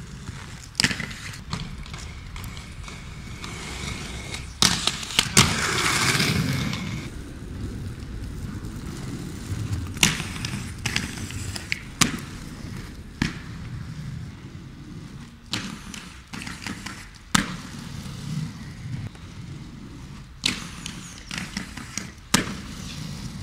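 Inline skates on a paved plaza: scattered sharp clacks and thuds of wheels and frames hitting the ground, with a louder scraping, rolling stretch about five seconds in.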